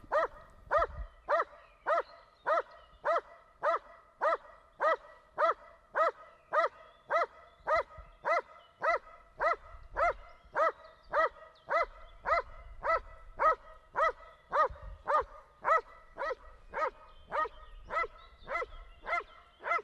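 Muzzled working dog barking at a protection helper, a steady, even series of short barks at about two a second without a break.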